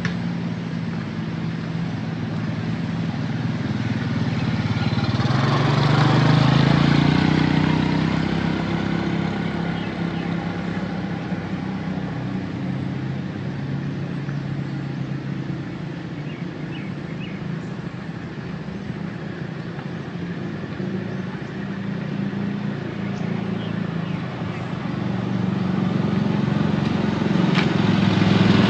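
Motor vehicle engines over a steady hiss, which the title suggests is rain. One vehicle swells up and passes, loudest about seven seconds in, and another approaches near the end.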